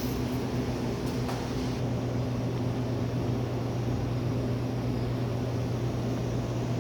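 Steady low electrical hum with a droning undertone from a running soda vending machine, with a couple of faint clicks about a second in.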